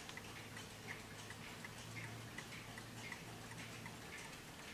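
Warmink pillar mantel clock's pendulum movement ticking steadily, an even tick-tock at about two and a half beats a second.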